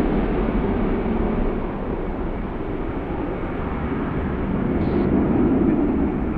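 Jet engines of a twin-engine narrow-body airliner climbing away after leaving the runway: a steady, loud roar that eases slightly partway through and swells again near the end.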